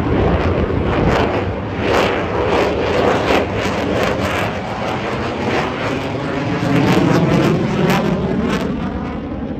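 Loud jet noise from an RAAF F-35A's single Pratt & Whitney F135 engine at high power as the fighter flies a display pass overhead: a heavy rush with repeated crackles. In the second half the tone sweeps down in pitch, and the noise eases slightly near the end.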